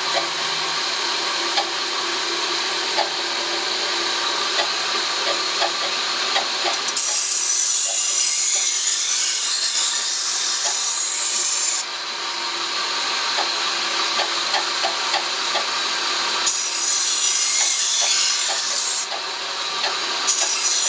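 A 2x72 belt grinder running slowly with a 180-grit belt turning in reverse, while a knife blade held in a sharpening jig is passed along the belt. The grinding hiss swells loud twice, for about five seconds starting about a third of the way in, then for about two and a half seconds later on, with a short touch near the end.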